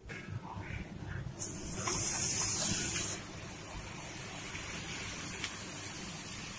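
Thin strips of pani puri dough deep-frying in hot oil. A loud sizzling hiss starts about a second and a half in, then after about two seconds settles to a steadier, quieter sizzle.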